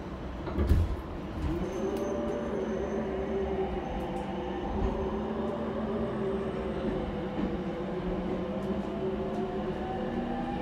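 Mitsubishi IGBT-VVVF inverter of an E231 series electric train whining as the train accelerates from a stop: several tones rising slowly and in steps over rolling rumble. A single thump comes about a second in.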